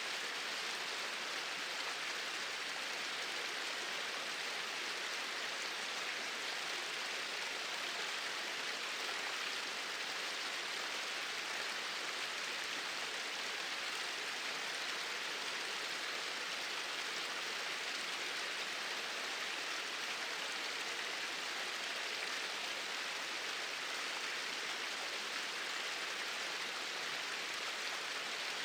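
Small waterfall pouring in a steady stream, an even, unchanging hiss of falling water.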